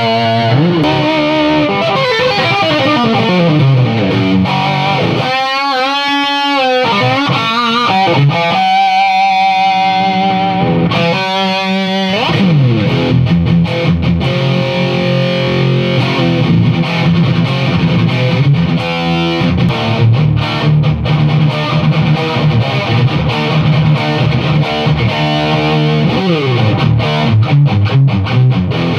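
Distorted electric guitar played through a rebuilt high-gain tube amp (a Crate Vintage 60 reworked into a Splawn/Soldano-style circuit): lead phrases with wide vibrato on held notes about six and twelve seconds in, sliding notes, then a low riff with steady chugging.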